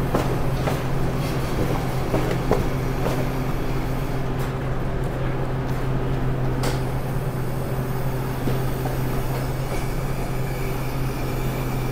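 Steady hum of commercial kitchen equipment, with light rustling and clicks as chicken is tossed by hand in breading. Near the end a soft hiss joins in as the chicken pressure fryer vents steam.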